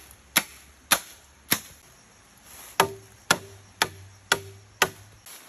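A series of sharp knocks: three evenly spaced strikes, a pause of about a second, then five more in a steady beat of about two a second.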